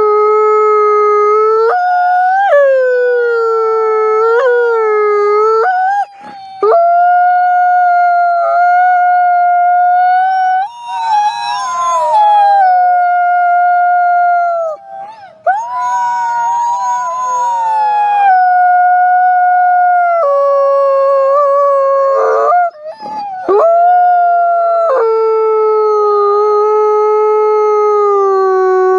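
Gray wolf howling close by: about four long, loud howls with short breaths between them, the pitch jumping abruptly up and down like a yodel, and turning rough and raspy partway through.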